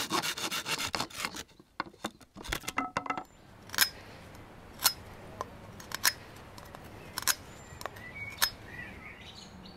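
Folding hand saw cutting through a thin wooden stick, quick rasping strokes that stop about a second in. Then a knife working a short bamboo pipe gives a few sharp clicks, roughly one a second.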